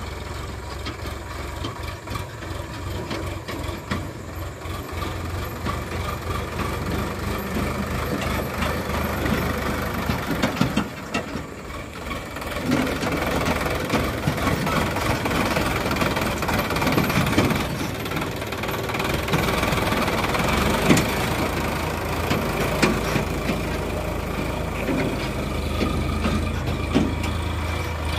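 Sonalika DI 60 tractor's diesel engine running steadily while pulling a trolley over rough dirt ground. Just before halfway the sound drops briefly, then comes back louder and rougher.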